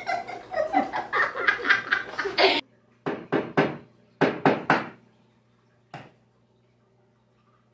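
Laughter in short repeated bursts, choppy at first and then in two quick runs of three, with a single light tap about six seconds in.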